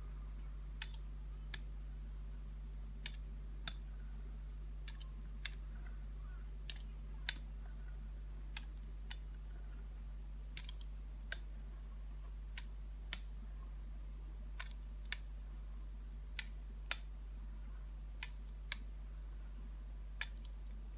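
Metal pizza-cutter wheel rolled in strokes across a thin sheet of dough, clicking sharply against the stone countertop roughly once a second at uneven intervals, over a steady low hum.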